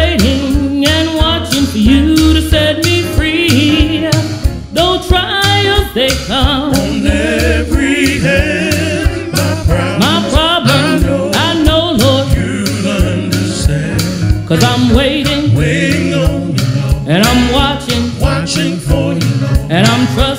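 A woman singing a traditional gospel song with a wide vibrato and drawn-out, sliding runs, over instrumental backing with a bass line and a steady beat.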